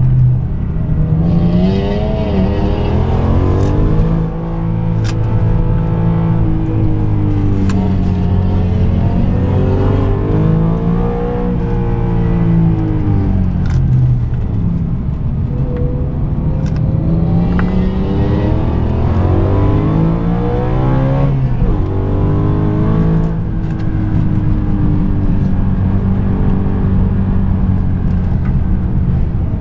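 BMW M3 E92's 4.0-litre V8 with a custom valved exhaust, heard from inside the cabin under hard driving: the engine note climbs and drops several times as the revs rise and fall through the gears.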